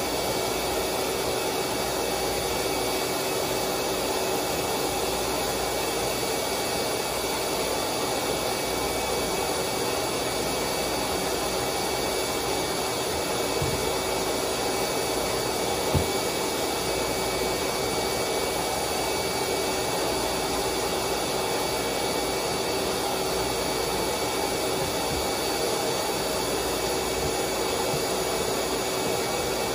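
Steady whir of an electric blower motor with a constant whine running under it, and a single sharp knock about halfway through.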